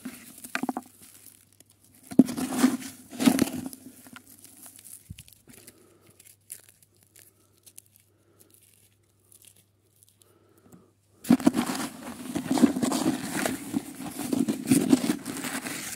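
Hands scrabbling through crumbly soil and tearing roots while lifting a young mycorrhized plant and its soil into a plastic bucket. Crunching and crackling come in a few short bursts near the start, fall quiet for several seconds, then run on steadily from about eleven seconds in.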